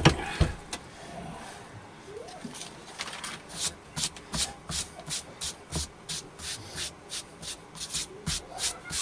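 Quick, regular rubbing strokes on T-shirt fabric, about three or four a second, starting about three seconds in and kept up steadily; a brief clatter of handling comes right at the start.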